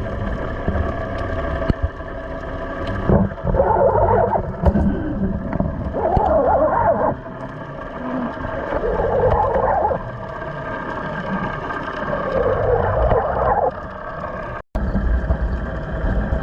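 A boat engine running steadily, with a gurgling rush of water that swells and fades every two to three seconds. The sound cuts out for an instant near the end.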